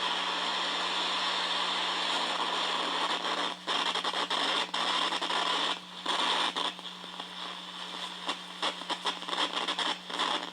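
Electrical static hiss with a steady low hum underneath, picked up through a homemade electromagnetic shield setup. It runs evenly at first, then from about three and a half seconds in it keeps cutting out in brief gaps and flickers unevenly.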